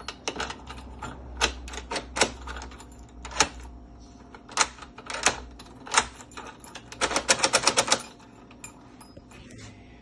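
Freshly installed brass mortise lock being worked with its key: sharp metallic clicks as the cylinder turns and the bolt and latch throw and retract. Near the end comes a quick run of about eight clicks in a second.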